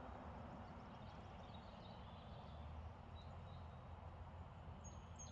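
Quiet outdoor ambience with a few faint bird chirps in the middle.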